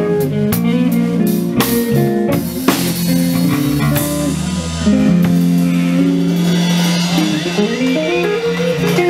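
Live blues band playing an instrumental passage of a minor-key blues: electric guitar and electric bass over a drum kit, with drum hits and cymbal crashes.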